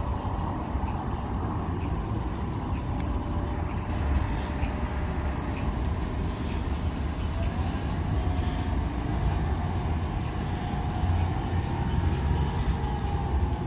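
Compressed-natural-gas city buses driving past at low speed: a steady engine rumble with a faint whine that rises in pitch about seven seconds in.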